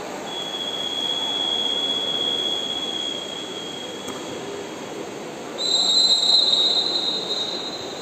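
Two long, high whistles over a steady background din. The first is one steady tone held for about three seconds. The second is louder and a little higher, starting a little past halfway and lasting under two seconds.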